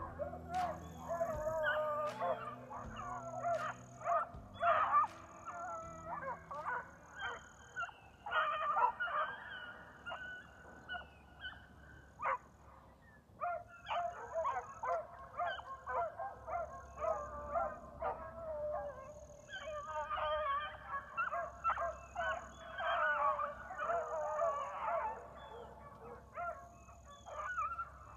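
A kennel of beagles barking and howling together, many overlapping voices in a chorus that swells and fades, dropping off briefly about twelve seconds in before picking up again.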